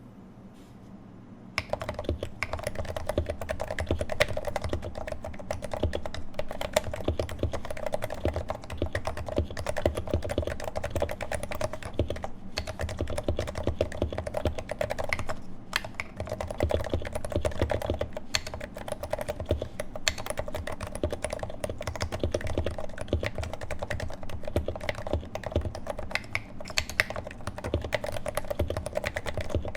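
Continuous typing on a Leopold FC660C Topre keyboard modded with lubed 55 g domes, Novatouch sliders, Silence-X rings and GMK keycaps, in a Norbauer Heavy-6 case: a dense, steady stream of muted keystrokes. The typing begins about a second and a half in, after a faint hum.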